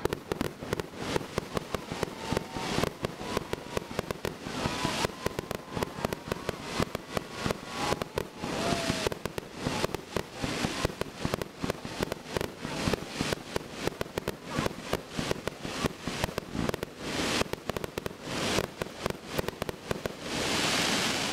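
Fireworks going off in quick succession: a dense, continuous run of pops and bangs with crackling as shells rise and burst. A rushing hiss builds near the end.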